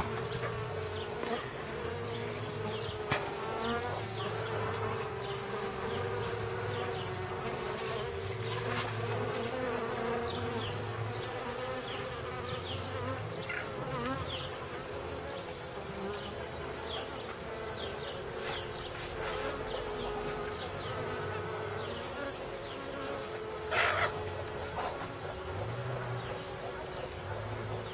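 Honeybees humming in a steady drone over open hive frames. A high, even chirp repeats a few times a second throughout.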